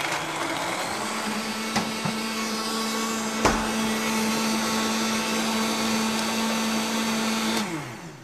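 A high-speed countertop blender runs steadily, blending soaked almonds with water into almond milk, with a single knock about halfway through. Near the end it is switched off and spins down with a falling pitch.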